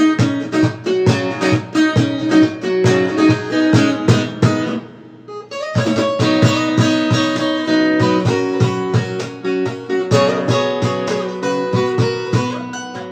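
Amaya 40 acoustic dreadnought cutaway guitar played fingerstyle, a steady run of plucked notes ringing over one another. The playing thins out briefly about five seconds in, then picks up again.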